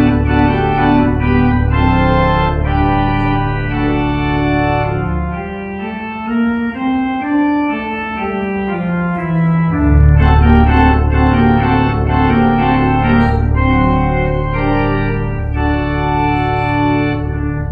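Church organ playing slow, sustained chords over a deep pedal bass. About five seconds in the bass drops out, leaving a lighter descending line, and the full chords return about ten seconds in.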